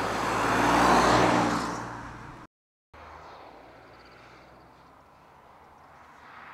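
2014 MINI Hatch driving past close by, its engine and tyre noise swelling to a peak about a second in and then fading. After a sudden half-second gap of silence, a quieter, steady engine sound of MINIs driving by further off.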